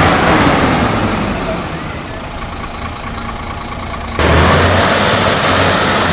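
Diesel engine of a HOWO T7H tractor unit running with a pulsing low rumble, under loud wind rush on the microphone that eases off for a couple of seconds and comes back suddenly about four seconds in.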